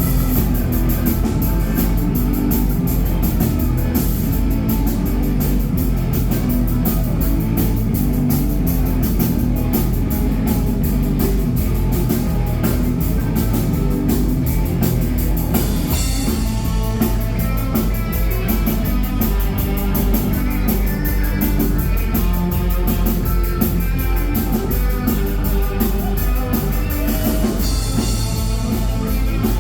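Live rock band playing, with drum kit, electric guitar and bass; the cymbals get louder about halfway through.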